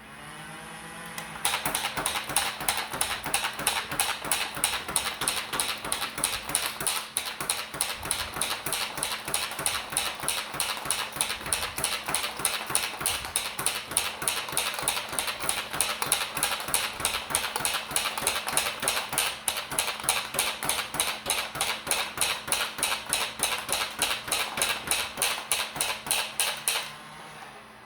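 Battery-powered D-Dart Blizzard toy blaster revving up with a rising motor whine, then firing full-auto as an even, mechanical clatter of about four shots a second that stops near the end. Running on AAA batteries, its rate of fire is slow and its shots a little weak.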